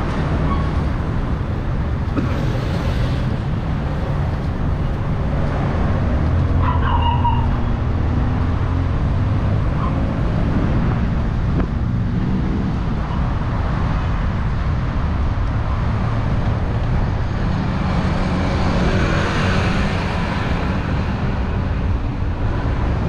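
Steady city road traffic: cars running along a busy boulevard, with one vehicle passing close about nineteen seconds in.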